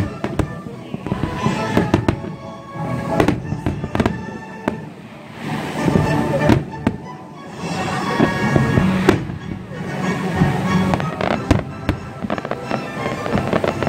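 Fireworks display: aerial shells bursting with repeated sharp bangs, some close together, while music plays along.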